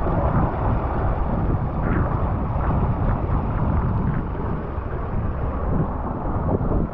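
Wind buffeting the microphone, a steady low rumbling noise, with water rushing along the hull of a small sailboat under sail.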